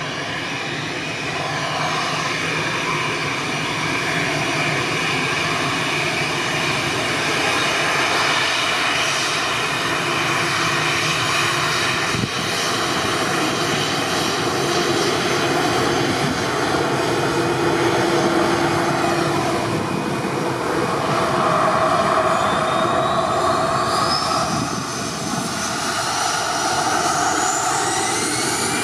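Twin jet engines of an Airbus A320 running at taxi power close by: a steady high whine over a rushing rumble. Over the last several seconds a high whine rises in pitch.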